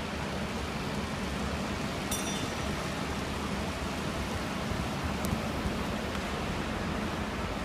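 Steady rushing ambience of an indoor velodrome during a track race, with bicycles circling the boards. There is a short high-pitched squeak about two seconds in and a sharp click about five seconds in.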